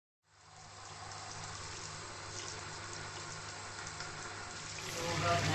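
Steady rush of running water with a low hum underneath. It fades in just after the start and grows louder near the end.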